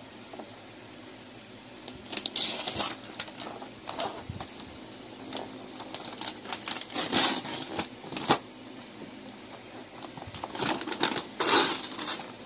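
Gift-wrapping paper being torn and crumpled off a cardboard toy box, in three short bouts of rustling and ripping.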